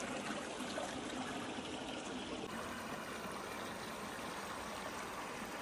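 Small forest stream running shallow over stones and fallen branches: a steady trickling rush of water.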